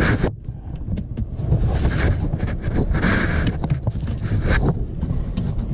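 Rustling and scattered light clicks of hands working the cables onto a replacement starter motor among the wiring harness, over a steady low rumble.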